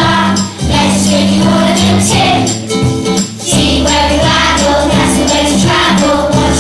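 A group of young children singing a song together over backing music with a steady, jingling shaken-percussion beat.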